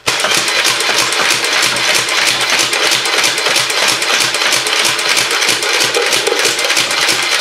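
Nerf Vulcan EBF-25 belt-fed blaster firing full-auto on its battery-powered motor. It makes a loud, fast, even mechanical rattle that starts abruptly as the belt feeds darts through.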